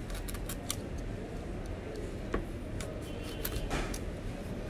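Snap-off utility knife blade cutting along the edge of a small cardboard box, its seal or wrapping: a scatter of light ticks and clicks, with a short scraping run about three and a half seconds in.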